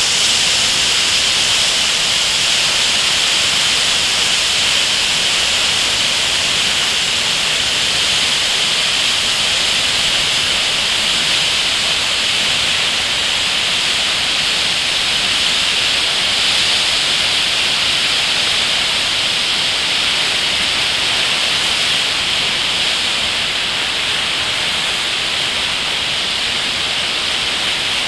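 Muddy river in flood, a fast torrent of brown water churning and rushing in a loud, steady roar.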